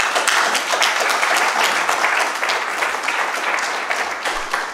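Audience applauding: a dense, even clapping that eases slightly near the end.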